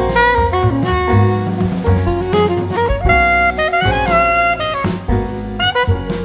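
Background music: an upbeat electronic dance track with a bright melodic lead over a steady drum beat.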